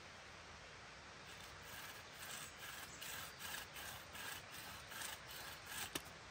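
Rhythmic rasping strokes, about three a second, starting about a second in, then a single sharp click near the end.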